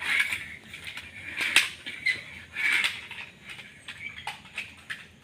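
Plastic toy cars being handled and pushed about: scattered clicks and knocks of hard plastic with short scraping rustles between them.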